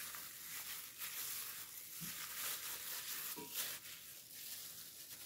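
Plastic-gloved hands working chicken legs through a thick yogurt marinade in a bowl: faint, irregular wet squishing with the crinkle of the plastic gloves and a couple of soft knocks.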